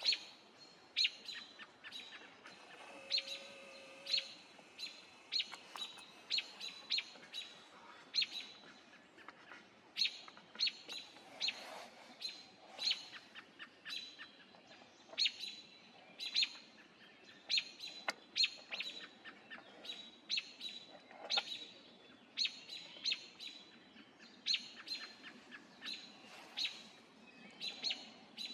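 A bird calling over and over in short, sharp chirps, one or two a second, without pause.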